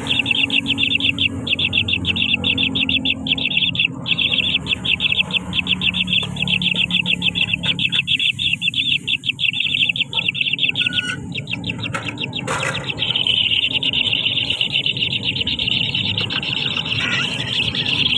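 Nestling birds begging in the nest: a fast, even run of high chirps that turns into a continuous high twitter about thirteen seconds in.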